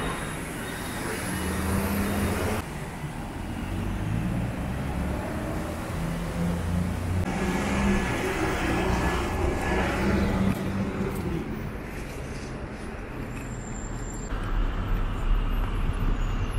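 City street traffic: cars and engines running along the road, the background shifting abruptly twice. A heavier low engine rumble comes near the end, where a bus is on the road.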